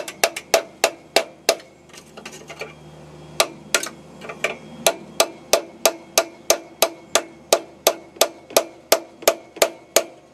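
Hammer blows on a long screwdriver wedged in the rusted sliding coupling of a Fiat 500's exhaust, sharp metallic taps about three a second, pausing for about two seconds after the first few. The taps are driving the seized joint apart.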